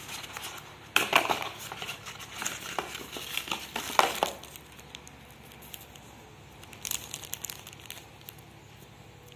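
Cardboard packaging inserts and a clear plastic packet being handled and crinkled, with a burst of rustling and sharp knocks over the first four seconds. After that come a few fainter plastic crinkles about seven seconds in.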